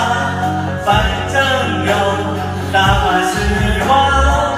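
A song: a voice singing over a backing track with steady bass notes.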